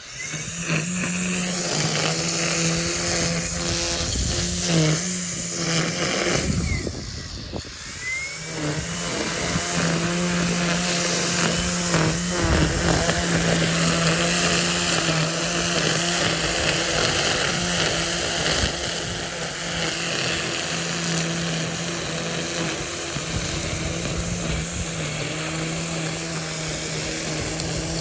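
Ego cordless multi-tool with its string trimmer attachment running at a steady speed. It cuts out briefly about six seconds in and spins back up a couple of seconds later.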